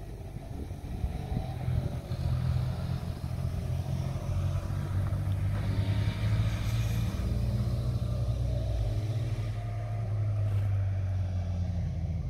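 A motorcycle's engine running on the road below, its pitch sliding up and down as it rides through the bends.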